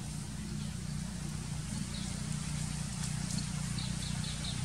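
Steady low outdoor rumble with a quick run of faint, high, evenly spaced chirps about three and a half seconds in.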